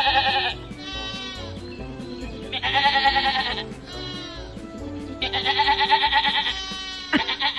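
A man imitating a sheep's bleat and sheep bleating back in turns: loud wavering bleats, each answered by a softer bleat, several times over, with background music underneath.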